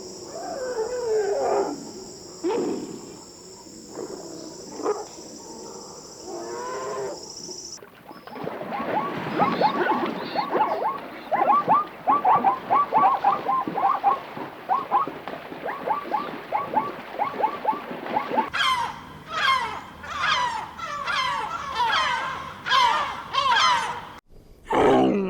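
A run of animal calls in three separate stretches: a few low, wavering calls over a steady high hiss; then a dense chatter of short, quick calls; then a series of repeated falling calls.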